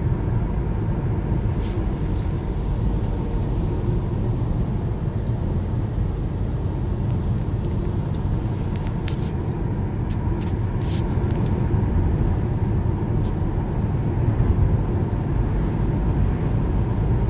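Steady road and engine noise inside a moving car's cabin, a low rumble with a few faint clicks.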